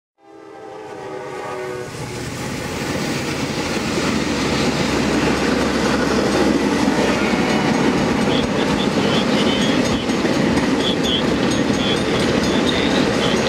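The tail of a diesel locomotive's horn chord, fading out within about two seconds, over a freight train's cars rolling past close by: a steady rumble with clickety-clack from the wheels that builds over the first few seconds and then holds.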